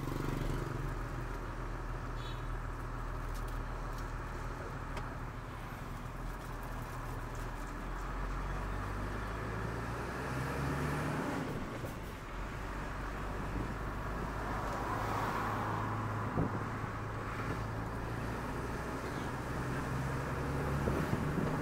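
Truck engine running steadily, heard while riding on the truck, its engine note shifting up and down a few times as it changes speed, over a haze of road noise.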